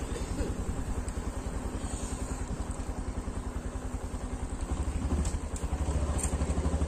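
Motorcycle engine running with a steady, rapid pulse as the bike rides along, heard from on board. The engine gets louder about two-thirds of the way through.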